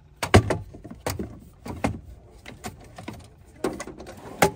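Hammers clunking against each other and the metal tool drawer as one is put back, a run of separate knocks with the loudest about a third of a second in. Near the end the metal drawer is pushed shut with a clunk.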